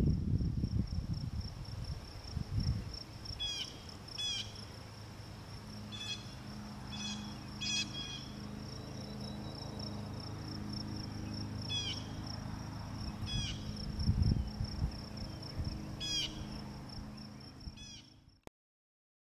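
Outdoor insect chorus: a steady, high, pulsing insect trill, with short falling bird chirps every second or two. There is a low rumble at the start and again about 14 seconds in, and the sound cuts off suddenly near the end.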